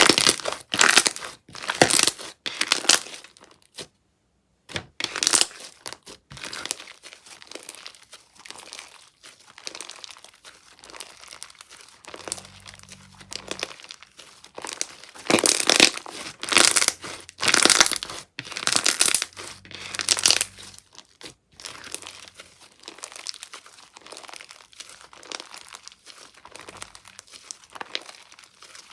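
Slime being squeezed, pressed and stretched by hand, making irregular crinkling, crackling sounds. The crackles come in bursts, loudest at the start and again in a run about halfway through.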